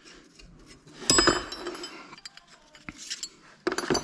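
Metal parts of a loader-wagon pickup slip clutch clinking and knocking together as they are fitted. There is one loud ringing clink about a second in, a few lighter ticks, and another sharp clatter near the end.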